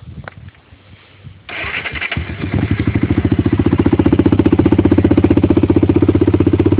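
1993 Honda 300EX quad's single-cylinder four-stroke engine starting: a click or two, then about a second and a half in it catches at once and settles into a steady, evenly pulsing idle. It runs through a stock exhaust with its baffle blown out.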